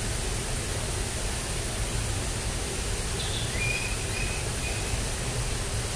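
Steady rushing outdoor noise, with a short high chirp near the middle that is held for about a second and a half.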